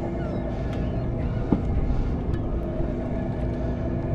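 Steady low drone and hum of a sportfishing boat's machinery, with wind and sea noise on deck. A short rising squeak comes about a second and a half in.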